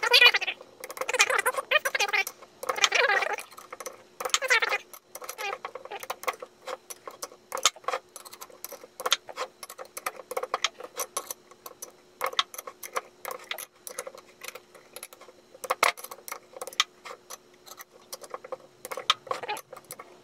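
Torque wrench ratcheting and clicking on motorcycle rear sprocket bolts as each bolt is checked at the set torque. Quick runs of ratchet clicks come in the first five seconds, then scattered single metallic clicks.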